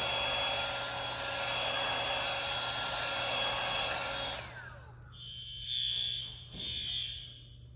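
Heat gun blowing steadily with a hiss, then switched off about four and a half seconds in, its fan whine falling as it spins down. Two long high tones follow near the end.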